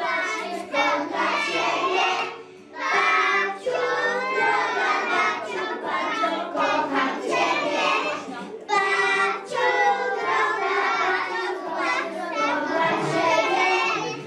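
A group of young preschool children singing a song together, with a short pause between lines about two and a half seconds in.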